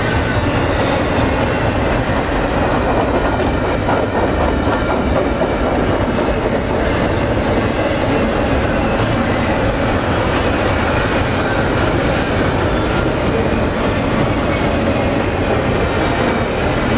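Double-stack intermodal container cars of a freight train rolling past: a steady, loud rumble of steel wheels on the rails with a clickety-clack from the wheels.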